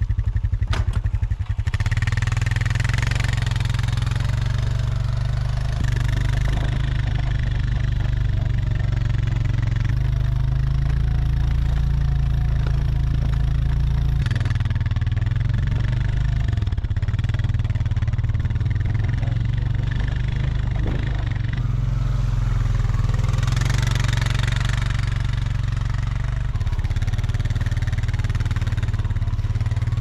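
ATV engine running as the four-wheeler tows a loaded trailer through deep snow. It putters slowly at first, then pulls away about a second and a half in and runs steadily under load.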